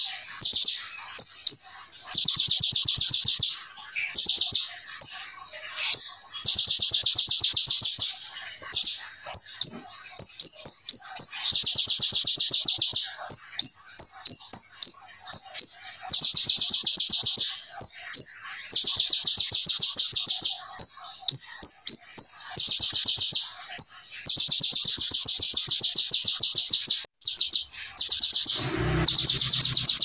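Kolibri ninja (sunbird) singing hard and fast: long, rapid high buzzing trills of one to two seconds, alternating with short sharp chirps, its song filled with imitated brem and ciblek calls. A brief low thump sounds near the end.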